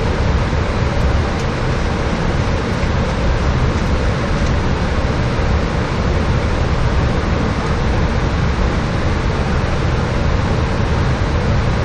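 Steady flight-deck noise of a Boeing 737-800 in descent: a constant rush of air, heaviest in the low end, with no change through the stretch.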